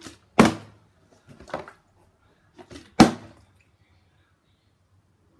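Plastic water bottle being flipped and landing on a hard surface: two loud knocks, about half a second in and about three seconds in, with lighter knocks between.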